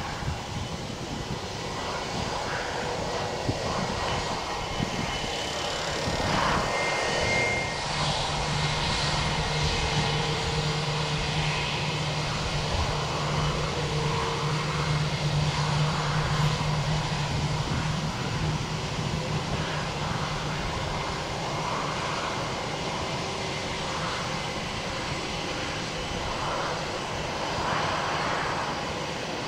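Embraer 175 jet's two General Electric CF34 turbofan engines running at low taxi power as the airliner rolls along and lines up on the runway. A steady jet whine over a rumble, with a low steady hum for a stretch in the middle.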